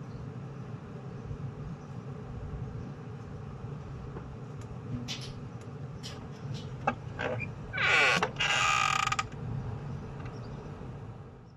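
Wooden window shutter being unlatched and swung open: a few sharp clicks from the latch, then a loud creak from the hinges lasting about a second. A steady low background hum runs underneath.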